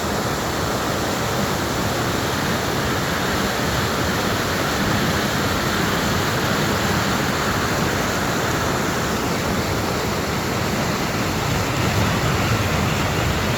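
Lidder River water rushing steadily, a constant even roar with no breaks.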